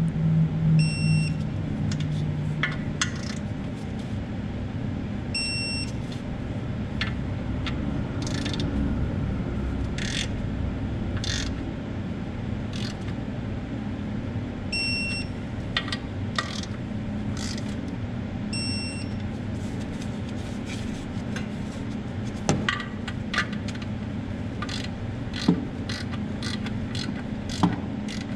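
Digital torque wrench tightening clutch pressure-plate bolts to 20 foot-pounds: ratchet and metal clicks, with short high beeps four times, the wrench's signal that a bolt has reached the set torque. A steady low hum runs underneath.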